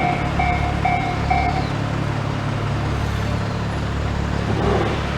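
Tobu Tojo Line level crossing's electronic warning bell (Tojo-type alarm) ringing at about two strokes a second, then stopping about one and a half seconds in. A steady low rumble of road vehicles continues under it.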